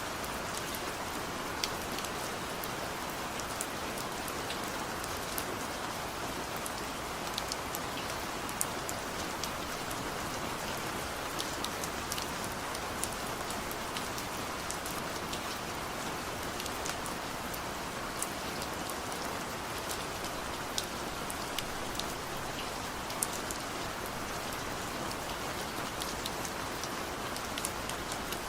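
Steady rain falling, a continuous hiss with scattered sharp ticks of individual drops landing close by.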